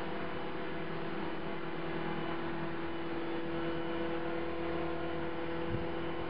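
CopterX 450 SE V2 electric RC helicopter running at a steady speed, giving a steady buzz on one constant pitch. After a crash its rotor blades are out of track; the owner takes the buzz for a sign of bent blades and fears a bent blade holder or feathering shaft. A brief low bump near the end.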